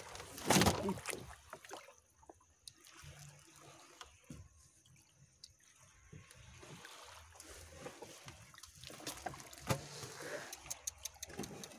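Scattered soft knocks and wet rustles with faint water trickling and dripping as a large stingray is handled and shifted on a wooden boat deck.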